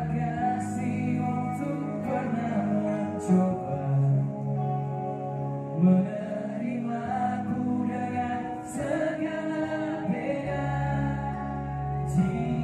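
A live pop band playing a song through a concert PA, with singing over keyboard and band accompaniment and a few brief cymbal splashes.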